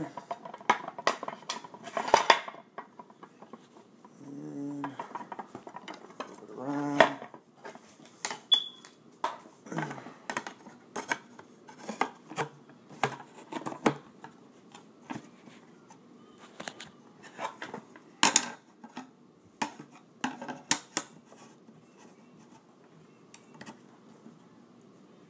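Hookah stand parts being fitted together by hand: irregular sharp clicks and knocks of hard pieces, thinning out near the end, with a couple of brief hums from the person assembling it.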